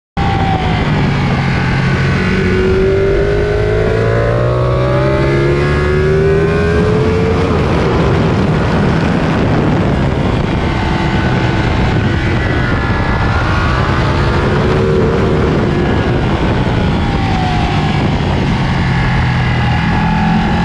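Onboard sound of a sport motorcycle at speed on a race track: the engine's pitch rises again and again as it accelerates through the gears, under heavy wind noise on the microphone.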